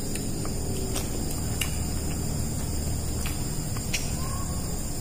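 Crickets trilling steadily in the background over a low steady hum, with a few light clicks from hands and plates.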